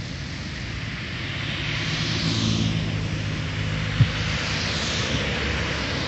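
Road traffic going by: the hiss of passing cars swells and fades twice, over a low engine hum in the first half, with one sharp click about four seconds in.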